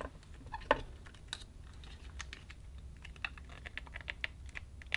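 Small, irregular clicks and taps of hard resin figure pieces being handled and shimmied into place against each other.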